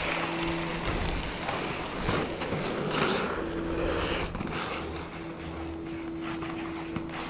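Inline skate wheels rolling and scraping on asphalt during freestyle slalom footwork, with a steady low hum that comes and goes in the background.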